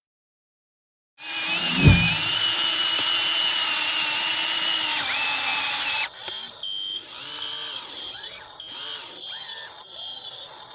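RC excavator running with a steady high-pitched whine and a thump just after it starts. About six seconds in it cuts to a quieter passage with shifting, warbling tones.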